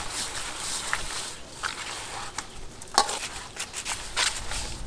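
Metal tongs stirring raw pig intestines in a metal bowl: wet squishing, with a few sharp clicks of the tongs against the bowl. The loudest click comes about three seconds in.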